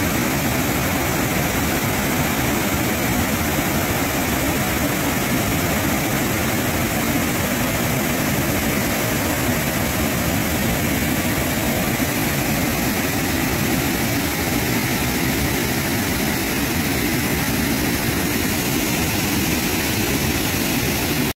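Boali Falls, a large waterfall, pouring over rock ledges: a loud, steady, unbroken rush of falling water.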